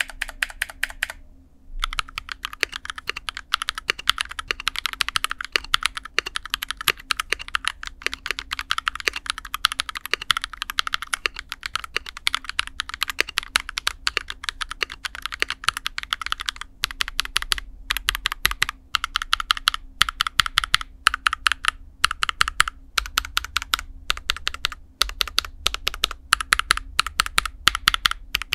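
Fast, continuous typing on a Rexus Daxa M61 mechanical keyboard in an aluminium case, built with lubed KTT Rose switches and cherry-profile keycaps for a clunky sound. The keystrokes stop briefly about a second in, then run dense and quick with a few short breaks.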